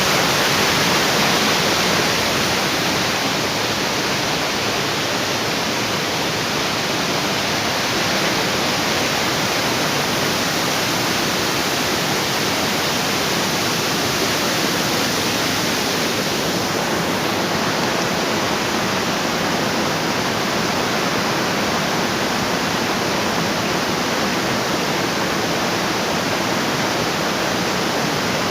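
Steady rush of falling water from a waterfall, an even wash of noise across the whole range.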